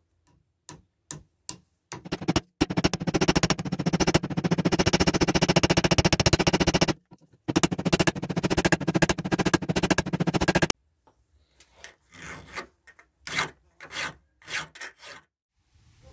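Antler handle being abraded: a few sharp ticks, then several seconds of rapid, continuous scraping with a short break in the middle. Near the end come separate strokes of a flat hand file across the antler end, about two a second.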